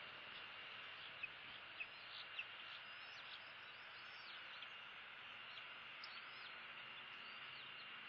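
Faint, steady outdoor hiss with many short, high bird chirps scattered through it and a few soft ticks in the first few seconds.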